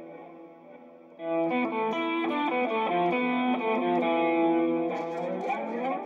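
Electric guitar played through an Eagle P412 speaker cabinet for a sound test: a held chord rings and fades, then about a second in a run of picked single notes starts, ending in a rising slide.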